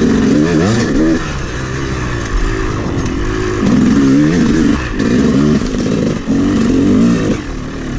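Freshly rebuilt 2011 Yamaha YZ250 two-stroke dirt-bike engine under way, its pitch rising and falling over and over as the throttle is opened and closed.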